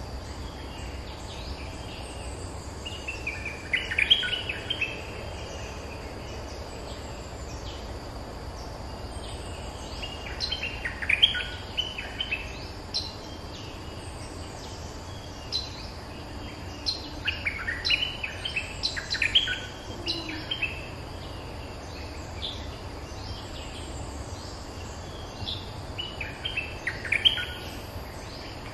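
Stripe-throated bulbuls calling in four bursts of quick notes a few seconds apart: a caged decoy bird and a territorial wild bird calling back at it. A steady low hum and faint high chirps sit underneath.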